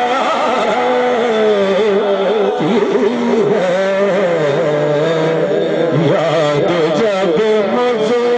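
A devotional kalam being sung: long, wavering melodic lines over instrumental accompaniment.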